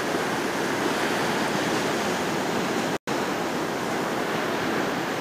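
Ocean surf breaking and washing in along the shore: a steady, even rush of waves. The sound cuts out for an instant about three seconds in.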